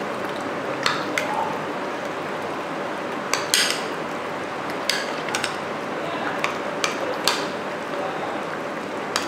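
Chicken pieces being stirred by hand through a thick cream and mayonnaise marinade in a glass bowl: a run of short, scattered clicks and taps against the bowl over a steady background hiss.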